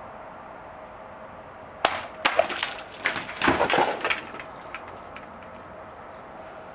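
Kodachi (short Japanese swords) cutting through a water-filled plastic gallon jug: two sharp strikes about half a second apart, then a second or so of splashing and knocking as the water and cut pieces fall.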